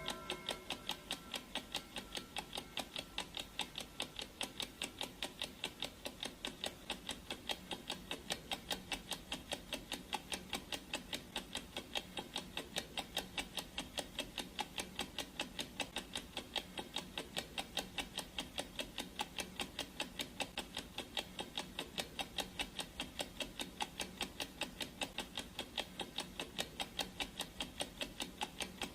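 Clock ticking sound effect: sharp, evenly spaced ticks, several a second, steady throughout.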